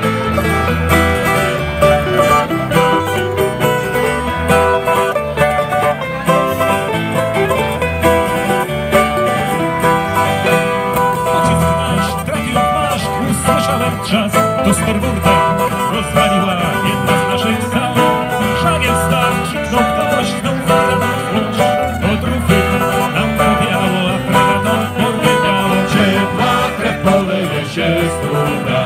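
Live acoustic folk band playing an instrumental break in a sea shanty: strummed acoustic guitar, mandolin and electric guitar over a steady beat, with no singing.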